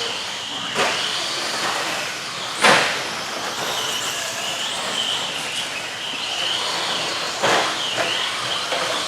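Electric 1/10-scale RC stadium trucks racing: a high motor whine that wavers up and down over steady tyre and track noise. Sharp knocks come about a second in, near three seconds and about seven and a half seconds in.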